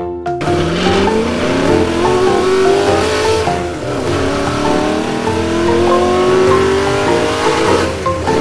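Racing car engine accelerating hard: its pitch climbs for about three seconds, drops as it shifts gear, then climbs again.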